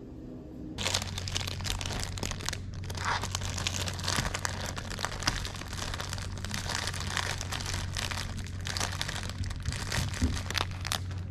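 Dense crinkling and crackling that starts suddenly about a second in, over a steady low hum.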